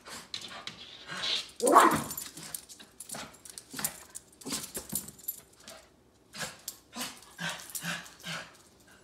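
West Highland White Terrier barking in short bursts, the loudest about two seconds in, followed later by a run of quicker, quieter barks about two a second.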